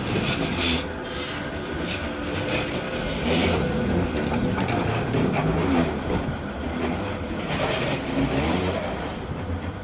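Manchester Metrolink Bombardier M5000 tram running past and pulling away along curving track, its wheels grinding and scraping on the rails with a wavering tone. It gets quieter toward the end as it moves off.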